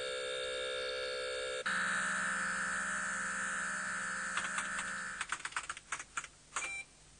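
Electronic computer-terminal sound effects: a steady electronic tone that switches to a lower steady tone under two seconds in and holds for about three and a half seconds. It gives way to a quick run of keyboard-like clicks with a short high beep near the end.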